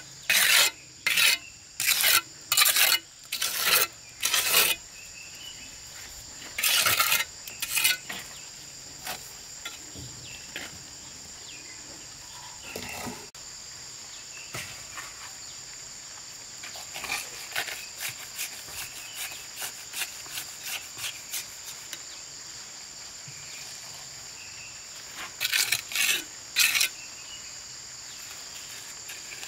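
Scraping strokes of a hand tool working cement mortar, about two a second for the first five seconds, then a couple of longer strokes, lighter ticks in the middle and a short run of strokes near the end. A steady high insect drone runs underneath.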